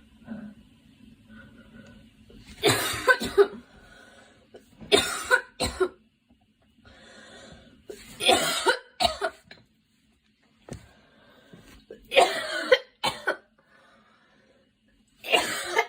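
A girl coughing in repeated fits of two or three sharp coughs each, a fit every few seconds.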